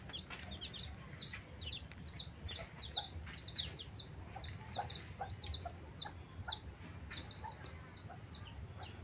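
Gà nòi (Vietnamese game fowl) chicks peeping in brooder cages: a steady run of short, high cheeps, about three a second.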